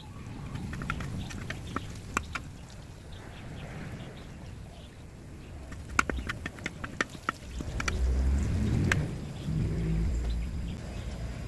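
Metal spoon clicking and scraping against a large iron wok while stirring garlic frying in oil, in a run of sharp taps about six seconds in. Farm fowl call in the background, and a louder low rumble comes in about eight seconds in.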